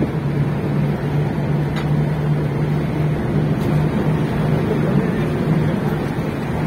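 SUV engine running at a steady pitch under load while driving fast over a dirt track, heard from inside the cabin, with tyre and road rumble underneath.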